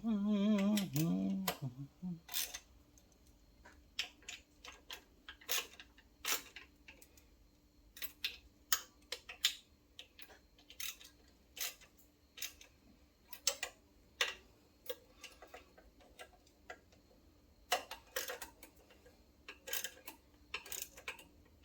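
Sharp metal clicks and taps of hand tools and parts on a small engine, scattered at irregular intervals.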